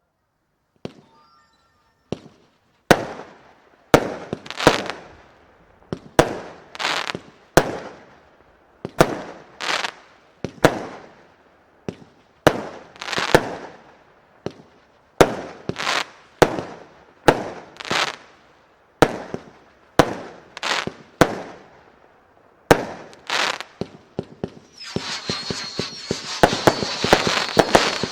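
Albert Feuerwerk consumer firework battery (cake) firing shot after shot, about one a second, each a sharp bang followed by a crackling burst that dies away. About 25 seconds in it changes to a dense continuous crackle with a steady high whistle over it.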